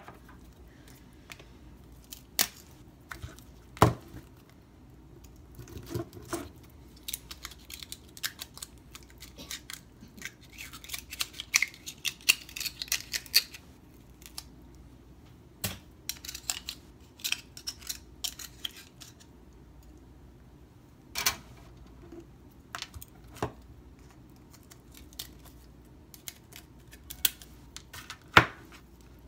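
An oyster knife clicking and scraping against brittle-shelled Virginia Eastern Shore oysters as they are shucked by hand: scattered sharp clicks and scrapes of steel on shell, a busier stretch of scraping near the middle, and a few louder single cracks.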